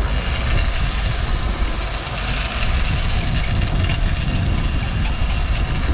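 Sport-fishing boat's engines running steadily under way while trolling, mixed with a constant rush of wind and churning wake water.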